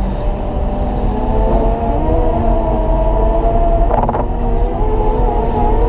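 Caterpillar 926M wheel loader's diesel engine working hard under load as it pushes heavy wet snow, a steady low rumble with a whine that wavers slightly in pitch. A brief, sharper burst of noise comes about four seconds in.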